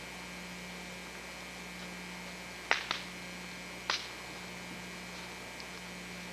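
A steady low hum, with three short sharp clicks a little under three seconds in, again just after, and about four seconds in.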